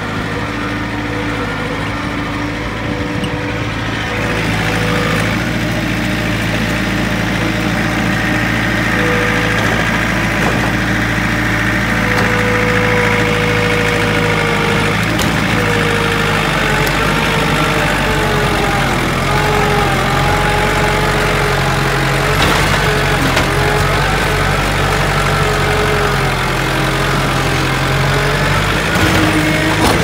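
John Deere compact loader backhoe's diesel engine running steadily, getting a little louder about four seconds in, with a wavering whine above the engine note through the middle and later part.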